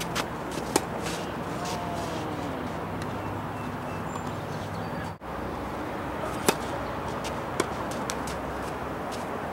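Tennis ball struck by rackets and bouncing on a hard court: a pair of sharp pops near the start and a few more past the middle, the loudest about two-thirds of the way in, over a steady outdoor background hum. The sound cuts out for an instant just past halfway.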